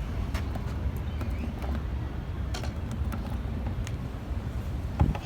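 A steady low rumble of outdoor background noise, with a few faint ticks and a single sharp thump near the end.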